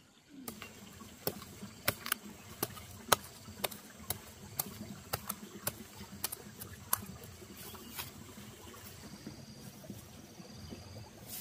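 Machete blade chopping into soil through straw mulch to dig a planting hole: a run of sharp strikes about two a second that stops about eight seconds in, followed by soft rustling in the straw.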